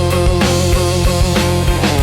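Slow instrumental blues: electric guitar over bass and drums.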